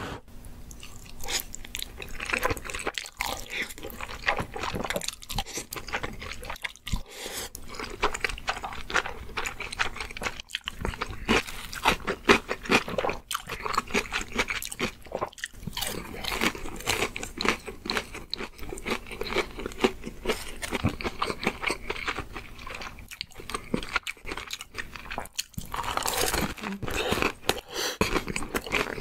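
Close-miked eating sounds: slurping and chewing creamy cream-jjamppong instant noodles, and crunchy bites of fried chicken, with dense wet mouth clicks throughout.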